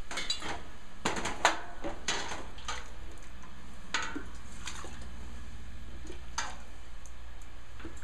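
Metal ladle clinking and scraping against the inside of a stainless steel stockpot and a plastic funnel while hot apple juice is ladled into a glass quart jar: about a dozen separate clinks over a steady low hum.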